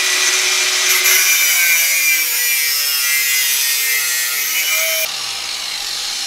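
Angle grinder with its disc in a metal pipe clamped in a vise, the motor's pitch sagging under load and then rising again. The grinding stops abruptly about five seconds in, leaving a softer hiss.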